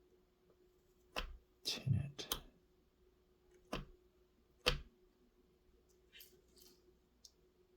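Several sharp knocks and clicks of small tools being handled and set down on a workbench: one about a second in, a quick cluster near two seconds, and two more a few seconds in, over a faint steady hum.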